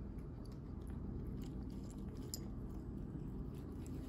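Kittens chewing and biting small pieces of meat, with many small, irregular clicks of chewing over a steady low rumble.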